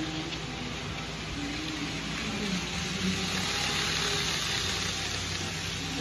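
Model Shinkansen 0 series train running along the layout track: a steady hiss of its motor and wheels on the rails that swells between about three and five seconds in, as it passes close by.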